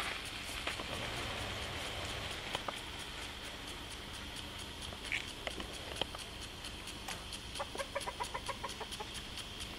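A bird or farm animal calling in a run of quick short notes, about five a second, near the end, over a steady high outdoor hiss.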